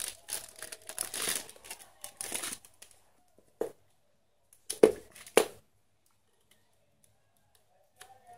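Clear plastic bag crinkling and rustling for about three seconds as a small USB load board is unwrapped. Then a few sharp clicks, the two loudest about five seconds in, as the plastic USB parts are handled and fitted together.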